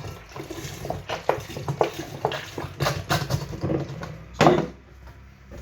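Irregular clinks and knocks of containers being handled, with one louder knock about four and a half seconds in.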